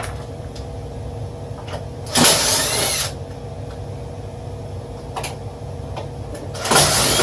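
Cordless drill/driver run twice in short bursts of about a second each, backing out screws to remove a furnace blower assembly.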